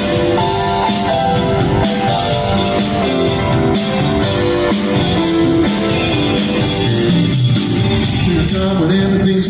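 Live rock band playing an instrumental passage, with guitar and drum kit, heard loud through the recording of a concert.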